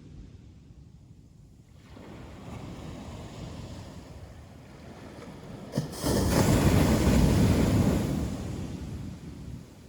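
Ocean waves on a beach. The surf builds from about two seconds in, a wave breaks loudly about six seconds in, and its wash fades out over the next few seconds.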